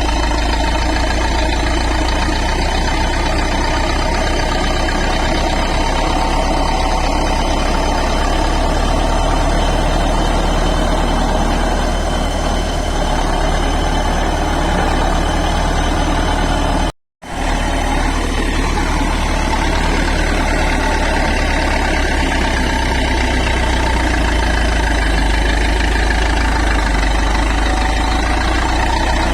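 Bulldozer's diesel engine running steadily with a deep rumble. The sound cuts out completely for a split second about seventeen seconds in, then carries on unchanged.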